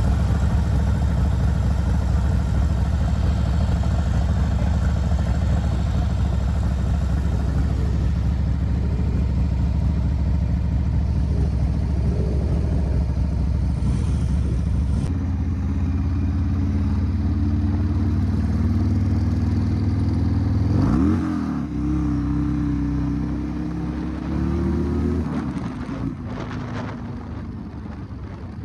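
Cruiser motorcycle engine running steadily, then pulling away and accelerating about two-thirds of the way in, with a rise in pitch and a gear change, easing off near the end.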